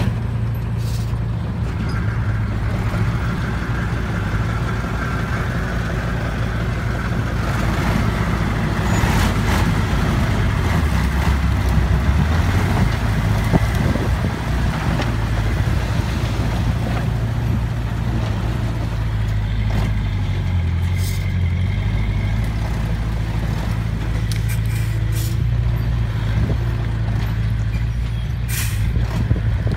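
Diesel dump truck engine running steadily while the hydraulic hoist raises the bed and tips out a load of soil. The engine note dips briefly twice, and there are a few short hisses of air.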